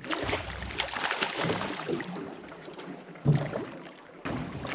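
Water and wind noise around a small boat at sea, with a sudden knock a little over three seconds in.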